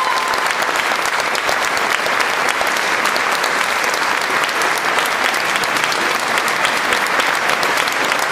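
Audience applauding steadily, a dense even clapping throughout. The last held note of the a cappella singing dies away in the first moment.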